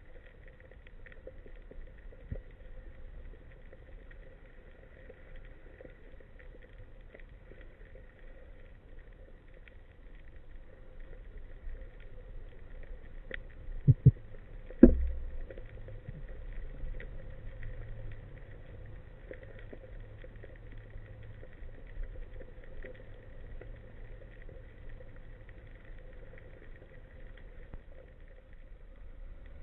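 Underwater ambience picked up by a diver's camera: a low rumble with a faint steady hum and scattered small clicks. Two sharp knocks come about a second apart, roughly halfway through.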